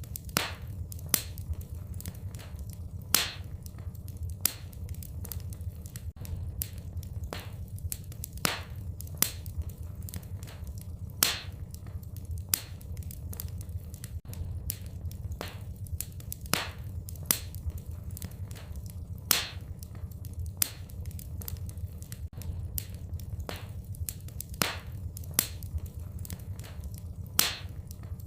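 Wood fire in a fireplace crackling, with irregular sharp pops and snaps, a few each second and some louder than others, over a steady low rumble.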